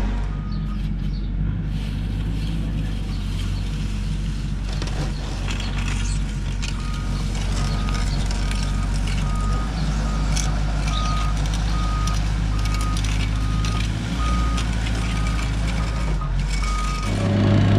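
Construction machine's engine running steadily while its reversing alarm beeps about one and a half times a second, starting a bit over a third of the way in; near the end the engine gets louder.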